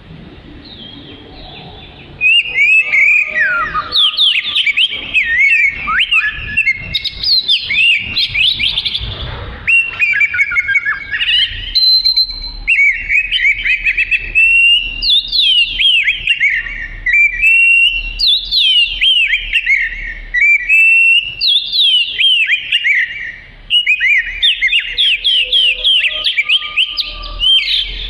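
Oriental magpie-robin (kacer) in full song: a long, rapid run of varied whistled and chattering phrases, starting about two seconds in, with one brief pause near the end.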